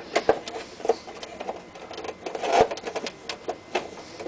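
Irregular clicks and knocks of hard plastic and metal parts being handled while a Dell Precision 650 workstation is worked on, a few louder knocks among lighter ticks.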